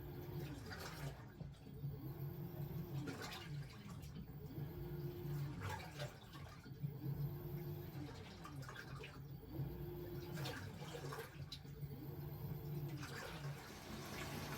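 Top-loading washing machine (LG T16MU) agitating: its motor whines up and falls back about every two seconds as the pulsator swings one way and then the other, churning the water in the tub. About thirteen seconds in the back-and-forth stops and a steady rush of water carries on.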